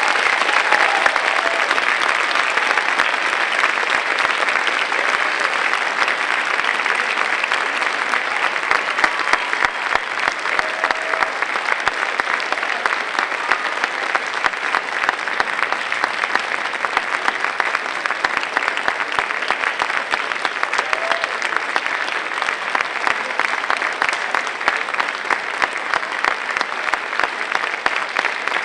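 Theatre audience applauding steadily, a dense, continuous clapping.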